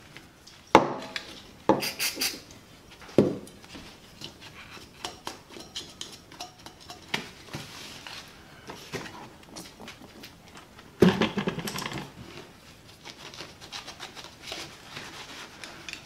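Hollow plastic toy casing pieces being handled and put down on a workbench, with sharp clacks about a second in, at two and three seconds, and a clatter of knocks about eleven seconds in. Between them comes lighter rubbing and scrubbing of a small brush on plastic.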